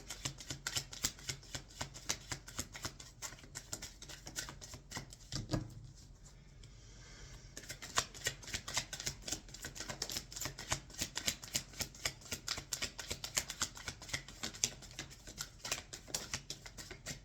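A tarot deck being shuffled by hand: a fast, steady patter of card edges clicking against each other, with a short pause about six seconds in before the shuffling resumes.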